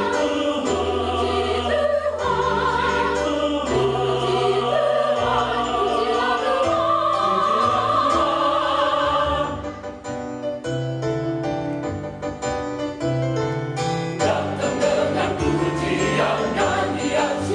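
Mixed choir of men's and women's voices singing in harmony, with long held chords over low sustained bass notes; about ten seconds in the singing breaks into shorter, choppier notes before returning to held chords.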